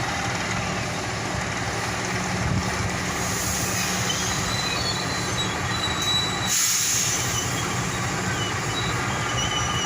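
Train moving slowly along the track over a steady low diesel engine hum, its wheels squealing in thin high tones, with a hiss that cuts off sharply a little past the middle.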